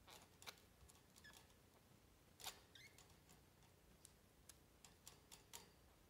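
Faint, irregular clicks and tiny squeaks, about two a second, from a male canary's laboured breathing: the nightly dyspnea of a mycoplasma respiratory infection.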